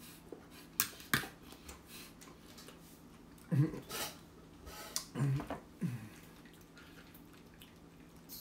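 Quiet eating sounds: a couple of sharp clicks of a fork against a plate about a second in, chewing, and a few short mumbled voice sounds a little later.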